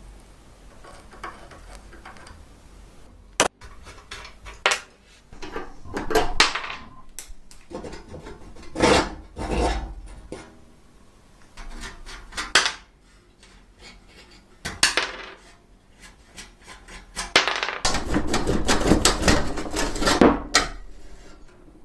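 Irregular scraping, rubbing and clattering of tools and hard parts being handled and worked, in short bursts with a longer stretch of scraping near the end.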